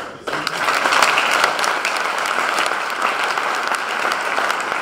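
Audience applauding, breaking out suddenly a moment in and keeping up steadily.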